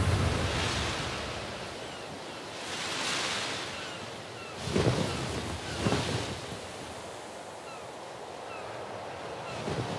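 Ambient sound bed of rushing, surf-like noise that swells and fades in slow waves, with two sharper whooshes about five and six seconds in and faint short high chirps scattered through it.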